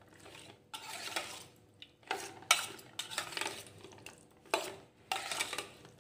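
Metal spoon stirring marinated chicken pieces around a stainless steel bowl, in short scraping bursts, with a sharp clink of spoon on bowl about two and a half seconds in.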